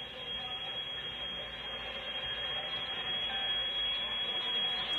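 Rebuilt 12-inch electromagnetic field-coil speaker of a Philco 41-280 tube radio playing AM-band static and hiss with a steady high-pitched whistle, growing louder as the volume is turned up.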